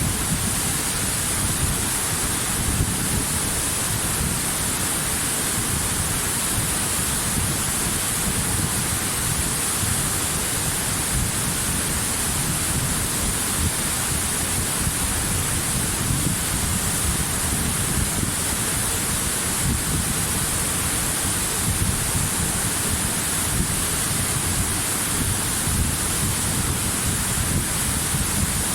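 Waterfall: a steady rush of falling water, with a deep rumble under a bright hiss.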